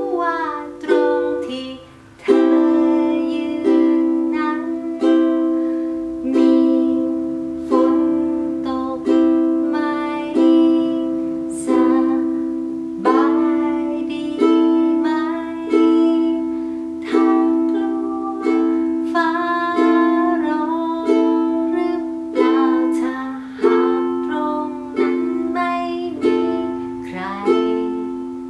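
Ukulele strummed in a steady pattern through a simple four-chord progression (C, A minor, F, G7), with a woman singing the melody along with it.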